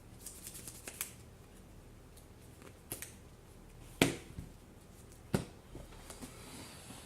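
Trading cards being handled and put down on a table. A quick flurry of light card flicks near the start is followed by sharp slaps of cards on the table, the loudest about four seconds in and another a little later.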